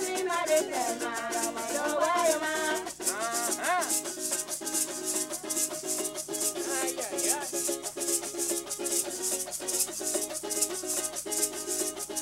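Live music: women singing together over a small strummed guitar and a shaker keeping a steady beat. The singing stops about three seconds in, and the guitar and shaker play on.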